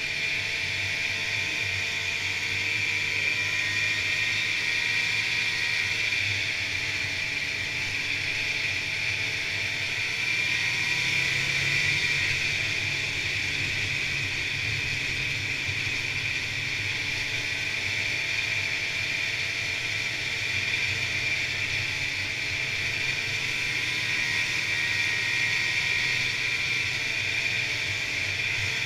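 Polaris Indy snowmobile running steadily along a trail: engine drone with track and wind hiss, the engine pitch drifting slightly up and down with the throttle.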